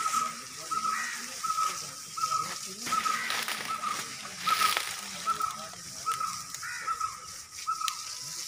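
Water from a hose spraying and splashing onto an elephant's hide, with a louder rush of water about four and a half seconds in. A short high chirp repeats steadily about every half-second throughout, and faint voices are heard.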